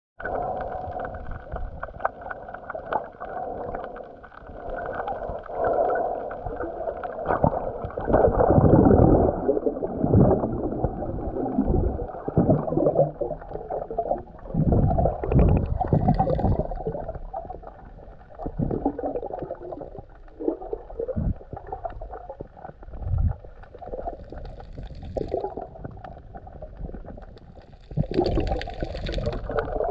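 Muffled water sounds picked up by a camera held underwater: irregular gurgling and sloshing surges with low rumbles.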